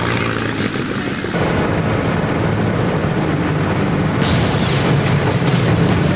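Light aircraft piston engine droning steadily with a heavy low rumble; the noise gets louder and hissier about four seconds in.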